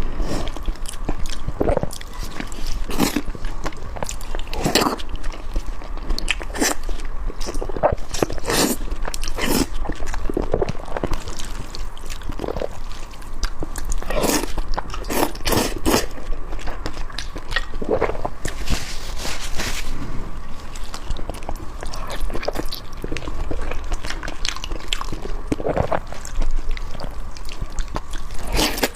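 A person eating Nanchang mixed rice noodles and barbecued beef tendon close to the microphone: irregular bites, crunches and chewing, several a second.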